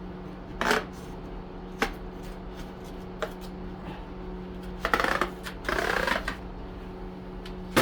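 Screwdriver prying a plastic cover out of an extruded aluminum LED light track: a few separate clicks and snaps, then a longer stretch of scraping and crackling about five seconds in, over a steady low hum.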